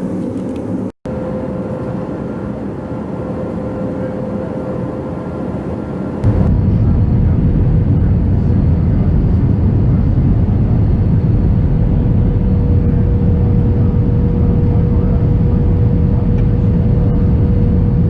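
Steady drone of an Airbus A321 cabin, engine and airflow noise with a faint steady hum. It drops out for a moment about a second in, then about six seconds in turns suddenly louder and deeper.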